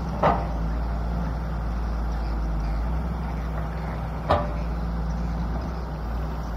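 Volvo 200 crawler excavator's diesel engine running steadily, with two sharp knocks from the machine, one just after the start and another about four seconds in.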